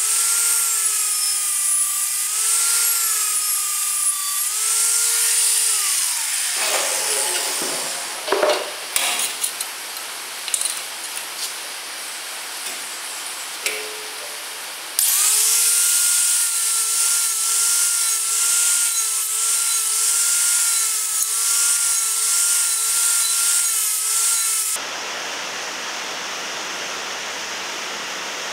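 Angle grinder with a sanding disc grinding the edge of a steel saw-blade blank clamped in a vise: a steady motor whine over a rasping hiss, which winds down with a falling whine about six seconds in. After some scattered clicks and knocks, a grinder runs again with the same steady whine for about ten seconds and stops suddenly, leaving an even hiss.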